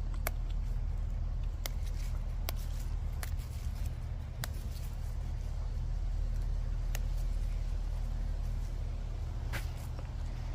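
Garlic mustard stems snapped and leaves plucked by hand, giving a handful of sharp, scattered snaps over a steady low hum.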